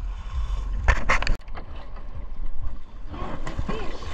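Close-up handling of a gill net and a freshly caught fish in gloved hands on a small boat, with a cluster of sharp knocks and rustles about a second in, over a steady low rumble.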